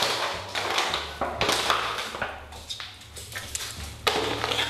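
Empty plastic bottle being crushed and squeezed by hand to make it into a dog toy: irregular bursts of crinkling and crackling plastic, with short pauses between squeezes.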